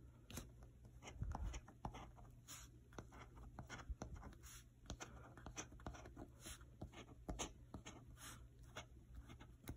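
A coin scraping the scratch-off coating off a paper lottery ticket, in many short, irregular strokes.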